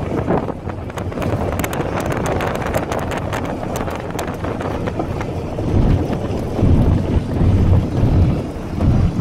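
Wind buffeting the microphone from a moving car, with the car's running noise underneath. Heavier low gusts of rumble from about six seconds in.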